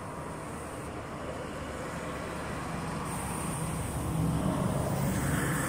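Road traffic: a steady rumble with a vehicle engine's low hum that comes in a couple of seconds in, the whole growing gradually louder.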